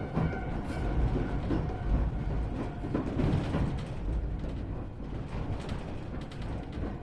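Interior running sound of an Iyotetsu 3000 series electric train car: a steady low rumble with scattered knocks and rattles.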